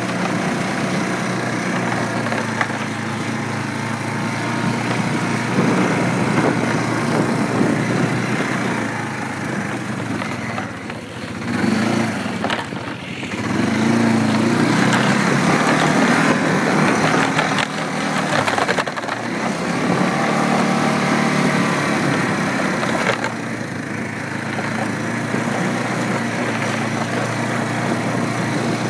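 A small engine running continuously, its pitch and loudness shifting as it works, with a brief dip partway through.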